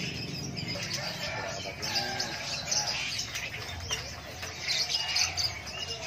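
Caged lovebirds chirping, many short high calls scattered and overlapping.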